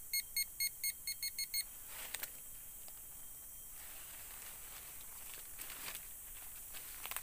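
Handheld metal-detector pinpointer beeping about nine times in the first second and a half, the beeps coming faster, as it is held to a clump of soil: it is signalling a metal target in the dirt. Then a few faint footsteps on dry leaf litter.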